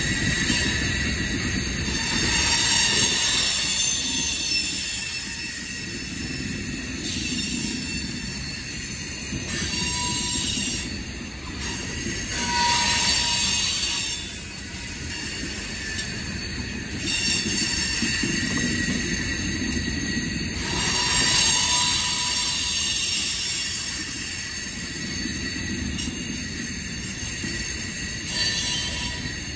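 Loaded coal train's gondola cars rolling past: a continuous low rumble of wheels on rail under high-pitched wheel squeal that swells and fades several times.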